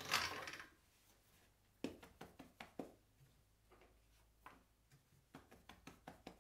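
Faint short soft taps of a cloth bundle of starch being patted onto a sheet of fresh noodle dough to dust it, in two runs of several quick taps.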